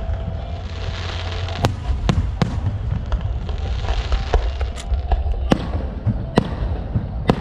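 Fireworks going off: sharp bangs at irregular intervals, about seven in seven seconds, over a continuous crackling hiss and low rumble.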